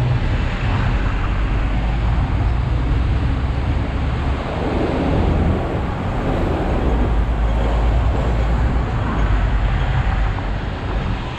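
Hong Kong double-decker tram running along its rails, a steady low rumble from its steel wheels and running gear, with street traffic around it.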